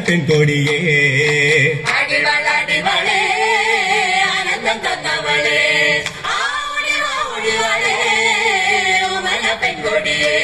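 A group of voices singing a Malayalam folk song (naadan pattu) together in one continuous melodic line.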